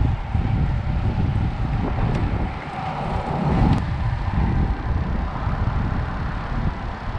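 Steady rumble and hum of road traffic crossing the concrete highway bridges overhead, mixed with wind buffeting the microphone in gusts.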